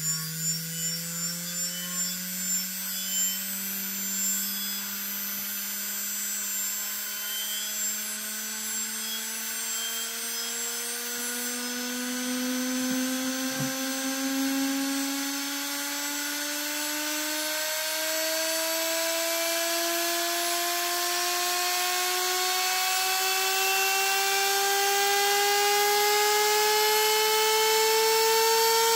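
Brushless spindle motor of an opened hard drive spinning its platter, overvolted by an external ESC: a whine that climbs steadily in pitch and grows slowly louder as the motor speeds up far past its rated speed. The sound pulses a little in the first few seconds.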